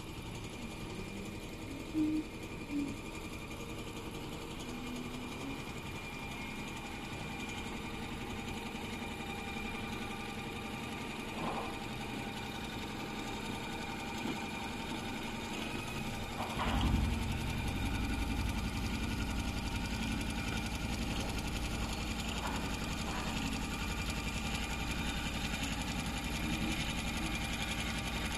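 Computer-controlled heating-wire sewing machine running steadily, a continuous machine hum with a faint high tone. About two-thirds of the way through a deeper low rumble joins in and continues.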